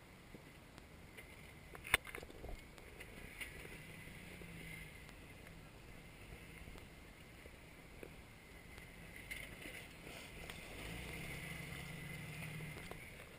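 Jeep Wrangler's engine running at crawling pace over rocks, picking up twice under throttle, louder the second time near the end. A single sharp click about two seconds in.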